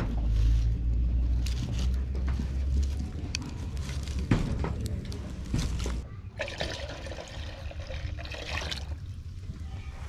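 Milk being poured into an aluminium cooking pot: a splashing pour that starts about six seconds in and lasts about three seconds. Before it, wind rumbles on the microphone, with a few sharp clicks.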